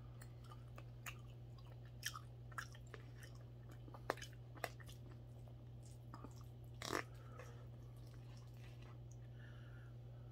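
Someone eating mackerel rice porridge: soft chewing, with a metal spoon clicking and scraping now and then against a plastic takeout tray. The clicks are short and scattered, the loudest about seven seconds in, over a steady low hum.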